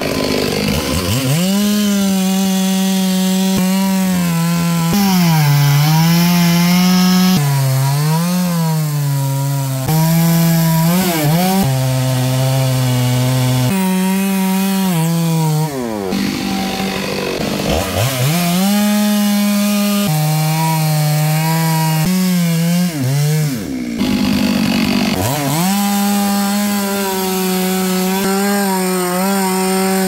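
Stihl two-stroke chainsaw cutting mahogany, running at high revs with its pitch sagging as the chain loads up in the cut and climbing again as it frees, with several sudden jumps in pitch and loudness.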